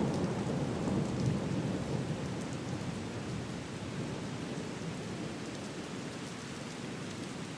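Heavy rain falling with a low rumble of thunder, loudest at the start and slowly fading.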